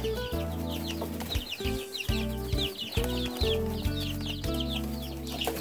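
A brood of three-week-old chicks peeping, many short falling cheeps several a second, over background music with held low notes.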